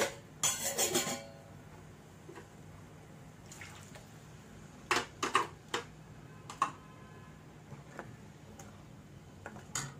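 A steel ladle and a bowl clinking and scraping against a kadai of masala gravy, with a few sharp clinks and clatters. The loudest come about a second in and again around five seconds in.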